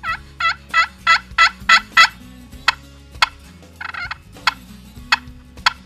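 Glass-surfaced Osage orange pot turkey call worked with a striker: a fast run of about seven hen yelps, then a handful of sharp, spaced-out popping clucks with one brief burst of yelps among them, imitating a hen to draw in gobblers.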